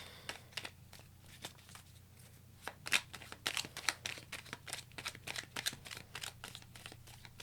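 Tarot cards being shuffled and handled: a quiet, irregular run of crisp card clicks and flicks, busiest around the middle.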